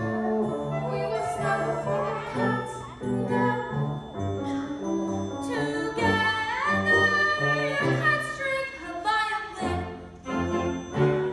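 Orchestral music from a stage musical, a passage without sung words, with a few notes sliding upward near the middle.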